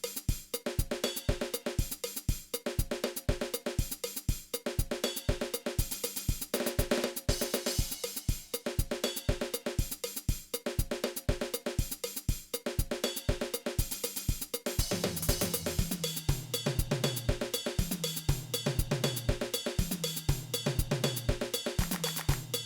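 Drum kit played to a backing track: a steady kick-drum beat with hi-hat and snare, and a Paiste 16-inch medium crash cymbal struck several times with a bright, ringing wash. A bass line comes in a little past halfway.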